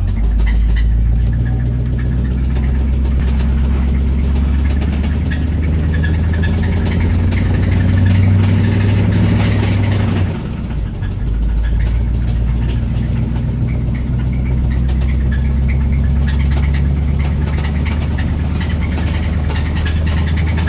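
1985 Chevrolet Silverado's 305 small-block V8 running while the pickup is driven, with a knock in the engine. The engine note drops briefly about halfway through, then picks up again.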